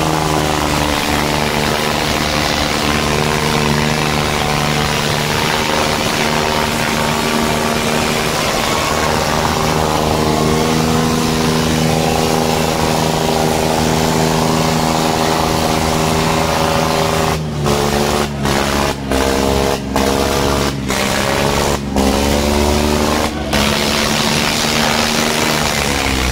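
Diesel tractor engines of an Eicher 557 and a New Holland 3630 running flat out under heavy pulling load in a tractor tug-of-war, a loud, steady drone with the front wheels lifting off the ground. About two-thirds of the way through, the sound cuts out briefly around seven times in quick succession.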